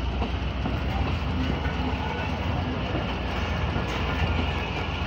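Pakistan Railways passenger coaches rolling past at close range as the Karakoram Express pulls out of the station: a steady low rumble of wheels running on the rails.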